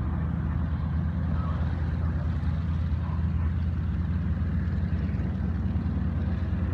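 Aircraft engine drone, steady and low.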